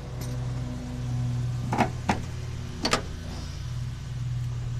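An engine running steadily, its hum swelling and fading, with three sharp clicks or knocks a little under two seconds in, just after, and about three seconds in.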